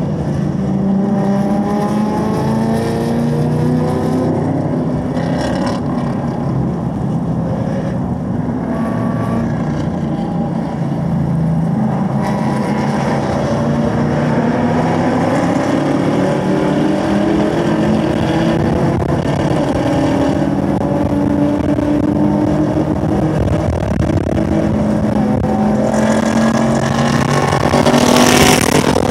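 Chevrolet Camaro SS 1LE's V8 engine, heard from inside the car, pulling at part throttle through corners at around 3,000 to 3,500 rpm, then accelerating hard. Its pitch climbs toward the end as it revs toward 5,000 rpm.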